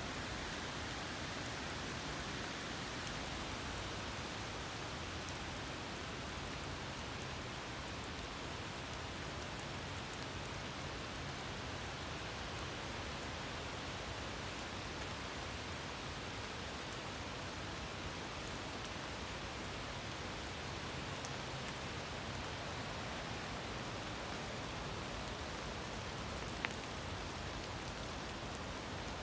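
Steady rain falling, an even hiss with no breaks. One brief sharp click near the end.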